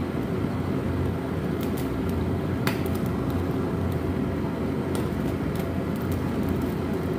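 Portable gas stove burner running with a steady roar while a cow's foot is singed in its flame, with scattered small crackles and one sharper crackle about two and a half seconds in.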